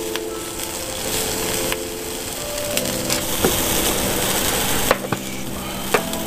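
Meat sizzling on a small charcoal grill, under background music with sustained chords. Three sharp clicks of handling in the second half.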